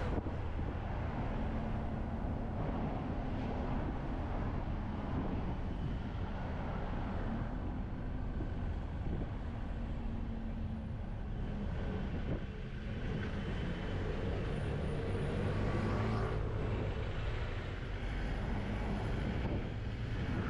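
Steady road traffic noise while moving along a city street: a low rumble with engine hum that comes and goes, swelling for a couple of seconds about fifteen seconds in.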